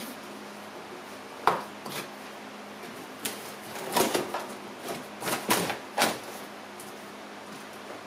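A cardboard shipping box being handled and unpacked. A sharp knock comes about one and a half seconds in, then a run of scrapes and bumps as the inner product box is worked out of it.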